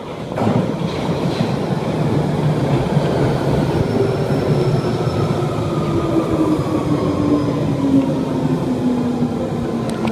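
Electric passenger train running and slowing, its motor whine falling steadily in pitch over the rumble of the wheels.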